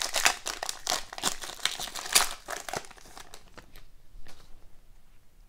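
Wrapper of a hockey trading card pack being torn open and crinkled in the hands, a dense crackling for about three seconds, then lighter ticks and rustles as the cards are handled.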